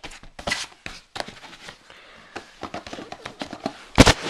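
Plastic DVD cases being handled and pushed onto a shelf: a string of clicks, taps and scrapes, then one loud knock about four seconds in as the handheld camera is set down.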